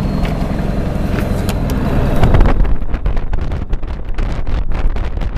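Ford F-350 pickup running with a steady low drone. About halfway through, gusty wind buffeting the microphone takes over.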